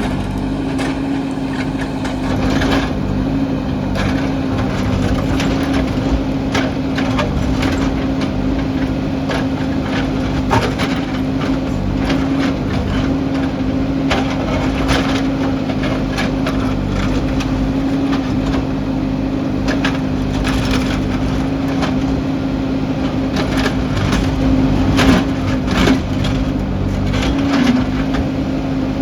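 JCB backhoe loader's diesel engine running at a steady pitch, with irregular sharp cracks and crunches of rock as the bucket digs into and scrapes the rocky ground.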